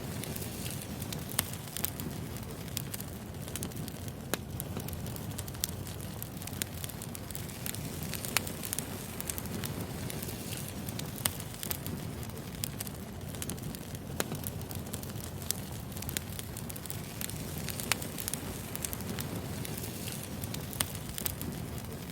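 Wood fire crackling: a steady low rumble of burning logs with frequent sharp pops and snaps scattered irregularly throughout.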